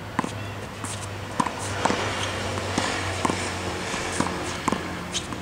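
Tennis ball being rallied against a practice wall: racket strikes, wall rebounds and court bounces come as sharp pops, several in pairs about half a second apart, over a low steady hum.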